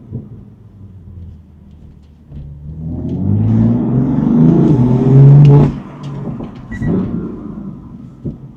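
BMW M4 (F82)'s twin-turbo inline-six running low and quiet, then accelerating hard from about two seconds in with its note rising in pitch, before cutting off suddenly a little past the middle. A short swell in engine note and a few sharp clicks follow as it settles back.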